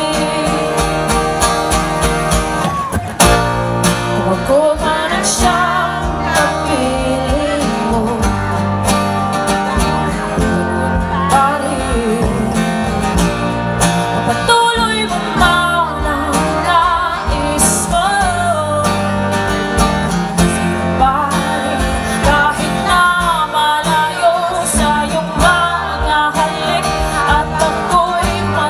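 A small live acoustic band playing a song: a woman singing over strummed acoustic guitar, with cajon beats, violin and keyboard.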